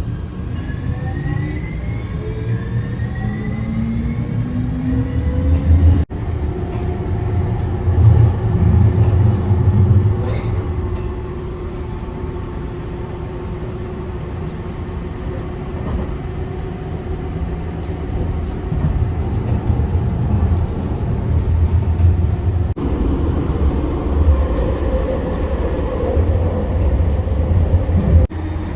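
Jet airliner cabin noise: a heavy low rumble with rising engine tones over the first few seconds, then a steady drone that carries on through several cuts.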